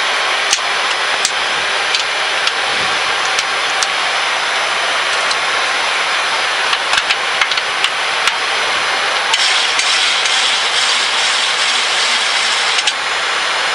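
Steady rushing cockpit noise of a Boeing 737-800 rolling fast along the runway, made up of airflow and engine noise, with scattered sharp clicks and rattles.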